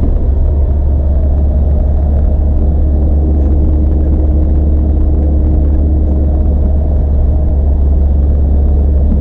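A road vehicle driving, its engine and road noise making a loud, steady low drone throughout.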